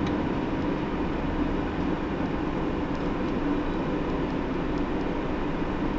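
Hino PDG-KV234N2 city bus's diesel engine running steadily with road noise, heard from inside the passenger cabin.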